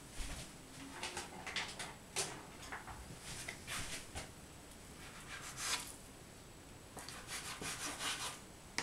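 A ball of soft yeast dough being cut in two with a flat blade and handled on a cloth-covered table: faint, short scraping and rubbing strokes.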